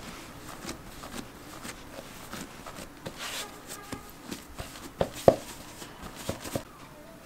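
Hands working a soft risen yeast dough on a floured wooden board, pressing and rolling it into a log: faint soft handling noises with scattered light taps, the loudest about five seconds in.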